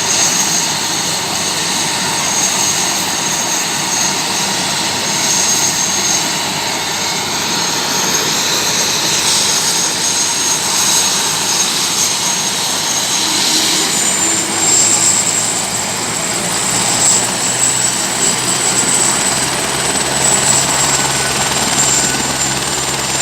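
Helicopter running, a steady, loud rotor and engine noise with a thin high whine that steps up in pitch about fourteen seconds in.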